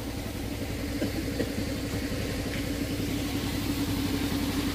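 A motor or engine running steadily at an even speed, giving a constant hum with a rapid low throb.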